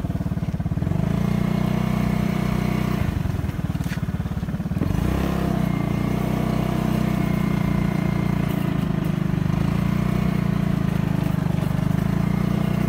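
Small motorcycle engine running steadily while riding along a rough dirt road; the engine note dips briefly about three seconds in and picks up again around five seconds.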